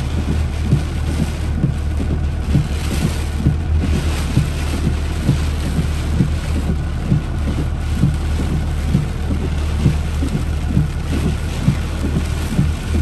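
Hurricane wind and heavy rain beating on a slowly moving car, heard from inside the cabin. A steady low rumble of the vehicle sits under a hiss of rain and many irregular dull thumps.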